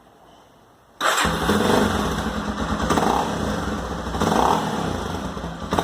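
Honda XR 250 Tornado's single-cylinder four-stroke engine starting up about a second in, then running and swelling louder and easing back several times. The stock exhaust's catalytic converter has had a hole drilled in it to make the engine sound louder.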